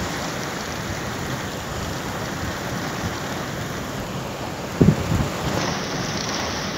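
Steady heavy rain falling, an even dense hiss, with a brief pair of low thumps about five seconds in.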